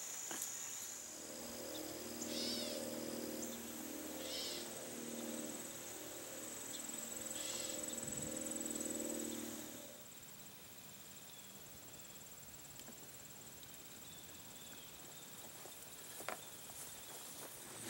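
Field insects, crickets, trilling steadily at a high pitch, with a few short chirps in the first few seconds. Under them for the first ten seconds or so runs a louder, low wavering hum of several tones that stops abruptly, leaving the insect trill on its own.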